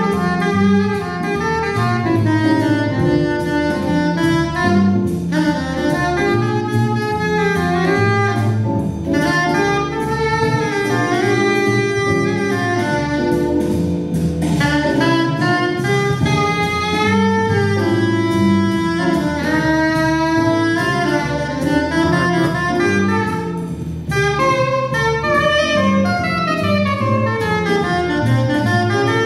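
Soprano saxophone playing a slow jazz melody, with quick runs up and down the horn in the last few seconds.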